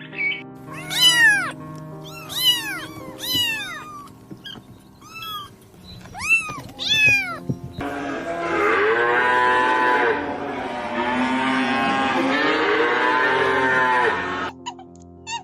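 Cat meowing, about six short high calls that arch and fall in pitch, over background music; about eight seconds in, a louder, denser six-second stretch of animal calling takes over and cuts off sharply.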